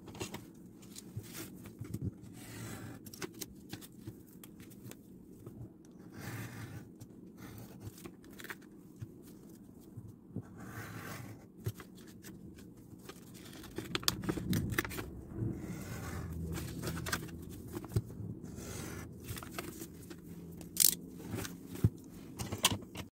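Paper and kraft-paper mail envelopes being slit and torn open one after another: repeated rustling, scraping and tearing of paper with sharp handling clicks, over a low steady hum.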